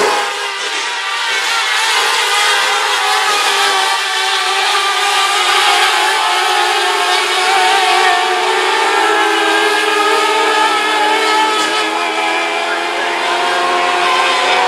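A pack of mini late model dirt race cars running laps, several engines overlapping with their pitch slowly rising and falling as they go through the turns and down the straights.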